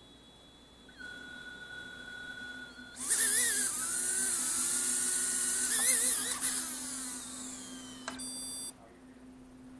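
Eachine US65 micro drone's tiny brushed motors spinning up about three seconds in to a loud, high whine that wavers in pitch as the throttle moves, then winding down. The drone's rear left motor does not work. A short beep sounds near the end.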